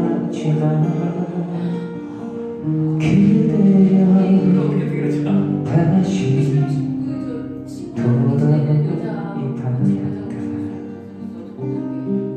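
Live acoustic guitar being strummed, with a voice singing a slow ballad over it.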